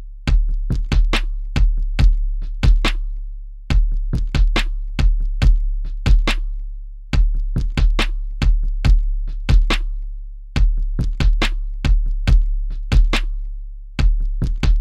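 Electronic drum-machine beat: sharp percussive hits over a deep, booming sustained bass, in a pattern that repeats about every three and a half seconds.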